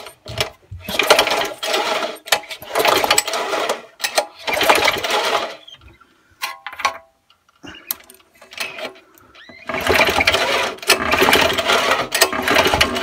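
Suffolk Punch lawnmower's small four-stroke engine spun over by hand on its recoil pull-start with the spark plug out for a spark test, so it turns without firing. There are several pulls of about a second each, then a longer burst of about three seconds near the end.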